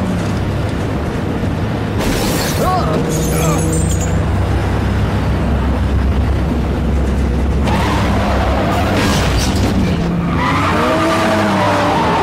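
Movie action-scene sound mix under a music score: the steady low rumble of a car and a big rig at highway speed. Near the end, tyres skid and squeal as the orange Toyota Supra slides off the road into the dirt.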